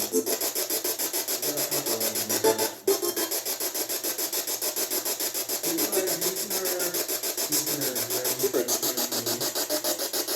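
Steady, rapid, scratchy pulsing hiss from electronic ghost-hunting equipment, several pulses a second, with faint wavering pitched fragments mixed in.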